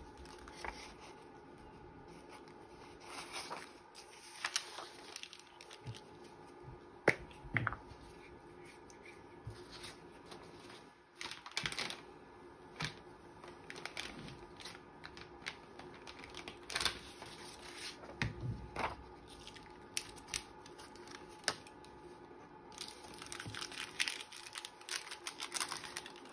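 Paper rustling and crinkling as a strip of paper is slid into an envelope and pressed into its corner, with scattered light taps and clicks.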